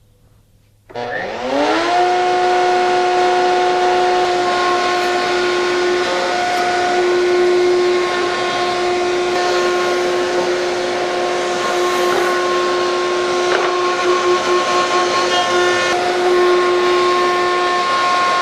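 A router mounted in a Festool CMS router table starts up about a second in, its whine rising in pitch and then settling into a steady high whine with a loud hiss as it routs a 1/8-inch roundover on the edges of a board, with dust extraction running.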